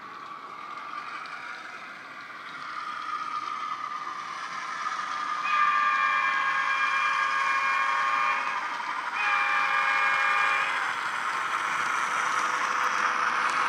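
Model locomotive's DCC sound decoder playing a P class diesel sound through a small bass-enhanced speaker: the engine sound rises in pitch, then the horn sounds twice, a long blast of about three seconds and a shorter one, with the engine running on as the train approaches.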